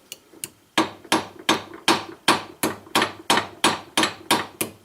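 Hammer tapping lightly on the bent tip of a Victorinox Pioneer's steel blade held in a vise, to straighten it. A dozen even, ringing strikes come about three a second, starting about a second in.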